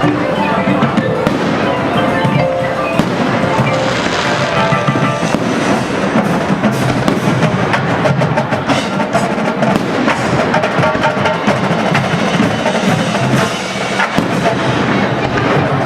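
Fireworks popping and crackling over loud music with drums and mallet percussion playing clear pitched notes.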